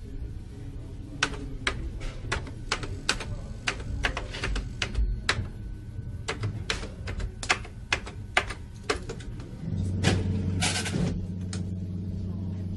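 Typewriter keys struck in irregular runs of clicks, several a second. Near the end a low steady hum sets in, with a brief hiss over it.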